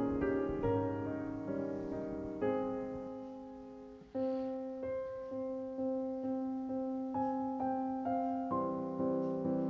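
Gentle background piano music, one note after another struck and left to fade, with a short fall in level about four seconds in before it picks up again.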